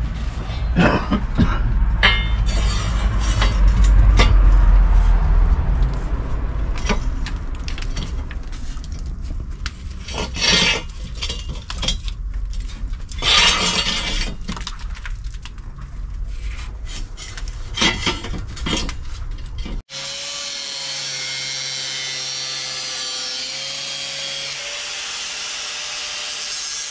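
Hand-tool work on masonry: scraping, rasping strokes and knocks over a low rumble. About twenty seconds in it cuts abruptly to a steady power-tool whine.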